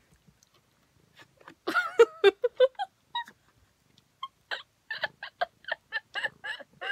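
A domestic cat meowing, a short cluster of loud cries that bend up and down in pitch about two seconds in, while begging for pizza. A rapid run of short pulses, about five a second, follows near the end.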